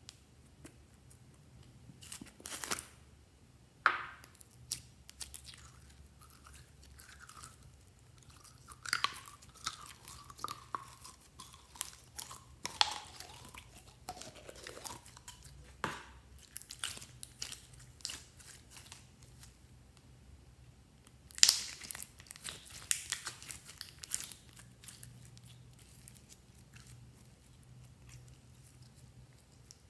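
Glossy gold glitter slime being squeezed out of a bottle and worked between the fingers: irregular wet clicks and pops, with a few drawn-out squelches in the middle and the loudest run of clicking a little past two-thirds of the way through.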